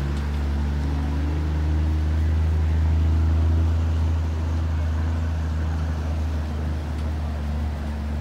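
Engine of a loaded cargo truck running as it drives through a river ford, a steady low hum that grows louder about two to three seconds in and then eases off.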